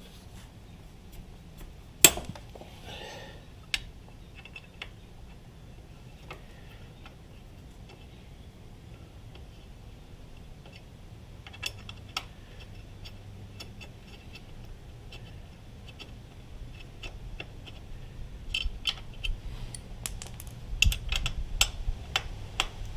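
Scattered clicks and light metallic clinks of hand tools and parts being handled while working on a motorcycle brake. There is one sharp knock about two seconds in, and a busier run of clinks near the end.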